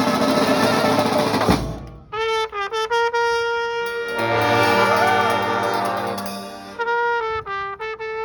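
Brass band playing. The full band sounds together, then drops out abruptly about two seconds in, leaving a horn playing short repeated notes. Low sustained notes and a sliding melody line come in over it about halfway through.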